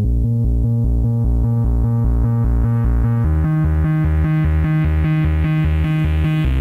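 Electronic background music: a rapidly pulsing synthesizer bass line with synth notes above it that grow gradually brighter, the bass note shifting down about three seconds in.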